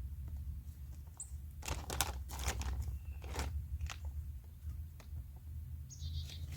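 A run of short crunching, scraping sounds about two seconds in and a few more after: soil and compost being worked around seed potatoes in a garden bed.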